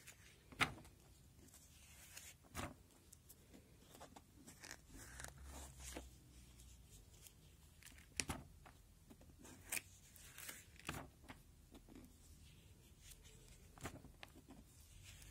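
Plastic sheet-protector pages of a binder turned by hand: a sharp plastic crinkle or slap with each flip, about six in all, with faint rustling between.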